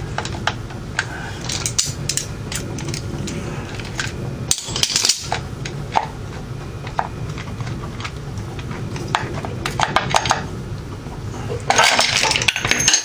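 Metal parts of a Harley-Davidson primary drive clicking and clinking as the primary chain and clutch basket are worked by hand. A dense burst of chain jangling near the end comes as the assembly is pulled off.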